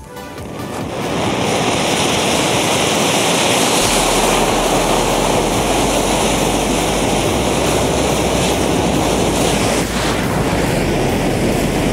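A mass of glued matchsticks burning as a jet, giving a loud, steady rushing hiss of flame out of the back of the cylinder. The hiss swells up over the first second or so, and a deeper rumble joins about four seconds in.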